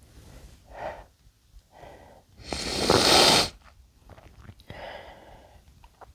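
A man sneezing once, loudly, a little before the middle, after two short breaths drawn in; a softer breath follows about a second and a half later.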